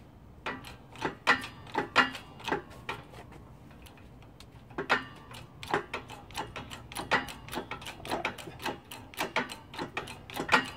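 Hydraulic bottle jack in a shop press being pumped by its handle: an irregular run of sharp metallic clicks, a few a second, with a short pause about three seconds in. The press is forcing a bearing and oil seal out of a GY6 scooter crankcase.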